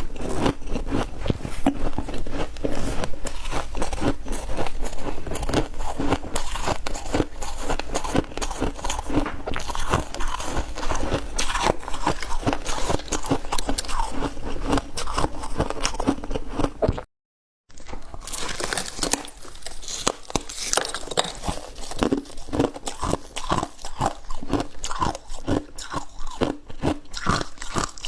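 Close-up mouth sounds of chewing crunchy ice: a dense, irregular run of crisp crunches. The sound cuts out completely for about half a second around seventeen seconds in.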